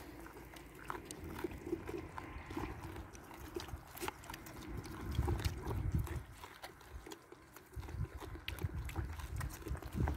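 Goats eating bread close up, from a hand and a bucket: many small irregular clicks of chewing and nibbling, with low rumbling bumps now and then.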